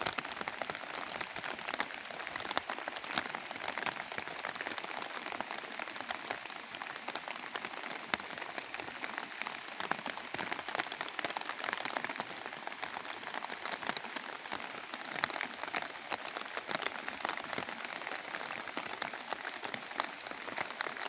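Steady rain falling, a dense patter of many sharp drop ticks over an even hiss.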